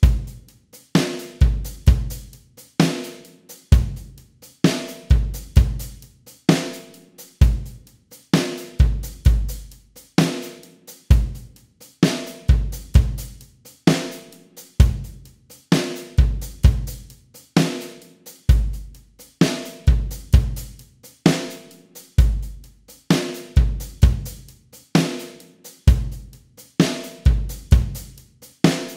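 Programmed acoustic drum kit from Superior Drummer 2.0 samples playing a steady 4/4 beat at 65 BPM. Kick, snare and hi-hat repeat the same groove bar after bar, with the kick and snare alternating about once a second, as a drum track for tempo practice.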